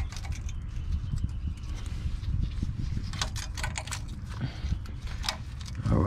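Metal clicks and clinks of new front brake pads and their steel clips being handled and seated in a 2001 Chevy Tahoe's caliper bracket, with a cluster of sharp clinks about halfway through and another near the end, over a low steady rumble.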